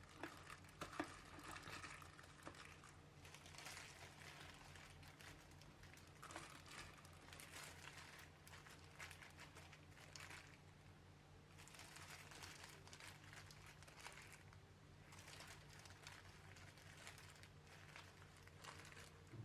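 Near silence: faint crinkling and rustling over a low steady hum.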